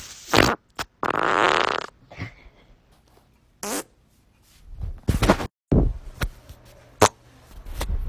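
A string of separate human farts, one after another with abrupt cuts between them. The longest runs for nearly a second, about a second in; the rest are short.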